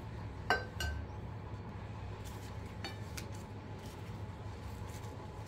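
A sharp clink of crockery about half a second in, ringing briefly, followed at once by a lighter clink and a soft thump. A few faint taps and clicks come around two to three seconds in as dishes are handled on the plate.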